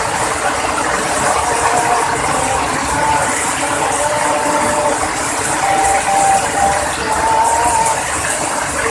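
Heavy rain falling hard: a dense, steady patter, with a faint wavering whine coming and going underneath.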